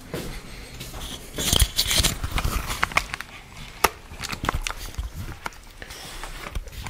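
Irregular soft knocks and clicks of footsteps on a wooden floor and of a handheld camera being handled, with a brief rustle about one and a half seconds in.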